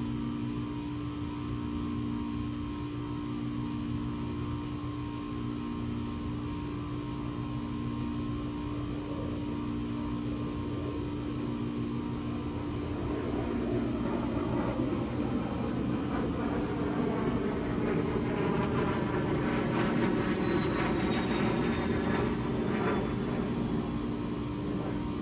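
An aircraft passing overhead: its engine noise swells from about halfway through and is loudest a few seconds before the end, with a high whine gliding down in pitch as it goes by. A steady hum runs underneath.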